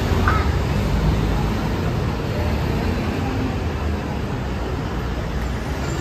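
City street traffic: cars and a bus passing with a steady low engine rumble. A short bird call sounds near the start.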